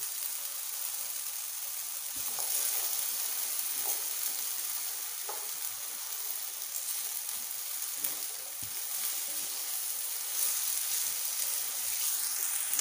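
Diced raw potatoes sizzling in hot oil in a frying pan, a steady hiss, with a spatula stirring and tapping against the pan a few times.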